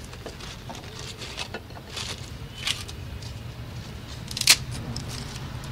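Wooden kindling sticks handled and set in a clay mud stove (chulha) as its fire is lit: scattered light clicks and knocks, the sharpest about four and a half seconds in, over a low steady hum.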